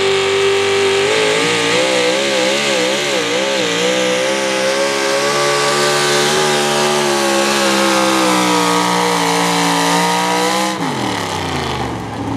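Pro Modified 4WD pulling truck's supercharged engine running flat out under the sled's load. About a second in its pitch rises and wavers, then sags steadily as the sled drags it down. Near the end the engine is cut and winds down quickly at the end of the pull.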